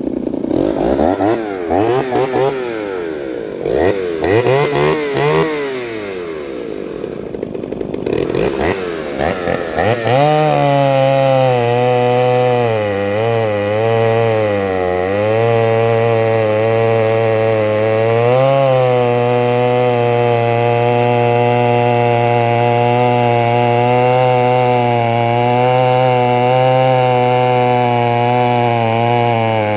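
Small two-stroke chainsaw revving up and down several times. From about ten seconds in it holds a steady high pitch under load as it cuts through wood, the pitch sagging and recovering a little.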